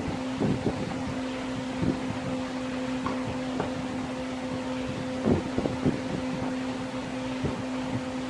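Steady hum of an electric fan or blower motor with rushing air, broken by scattered light knocks and scrapes.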